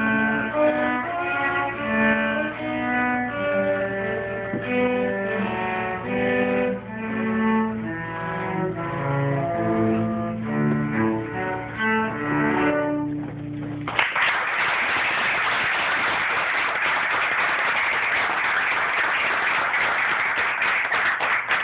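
Two cellos playing a duet, one holding a low sustained note under the other's moving melody. The music ends about two-thirds of the way through, and the audience applauds steadily.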